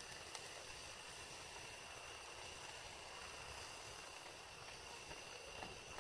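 Faint steady sizzling hiss of beaten egg poured onto a hot griddle pan over a tabletop gas burner, with a steady high-pitched tone underneath.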